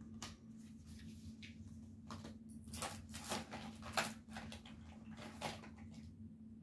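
Faint scattered clicks and rustles of makeup packaging and items being handled and rummaged through, over a faint steady hum.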